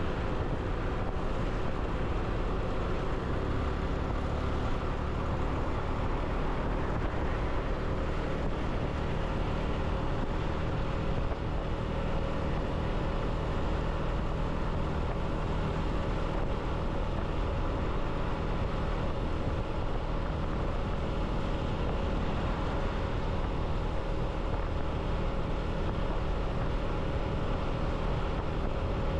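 Motorcycle engine running steadily at an even road speed, with tyre and wind noise; the engine note holds one pitch with no revving or gear changes.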